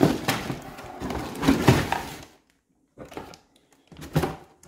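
A toy playset's cardboard box being handled: several knocks and thunks with some rustling, a short silent break a little past halfway, then a few light clicks.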